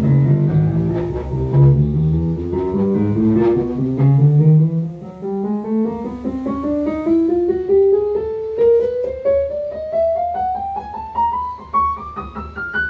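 Yamaha Motif XF8 synthesizer keyboard sounding note after note as it is played up the keyboard, the pitch climbing steadily. This is a key-by-key test of the newly replaced keybed, and every key sounds.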